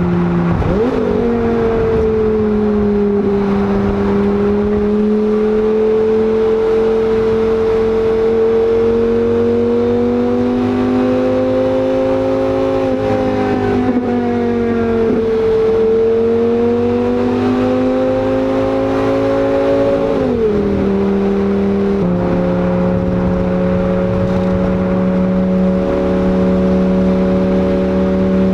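Lamborghini Gallardo's V10 engine running through a new custom-made exhaust while driving. The note climbs slowly, drops sharply twice as with gear changes, then holds steady near the end.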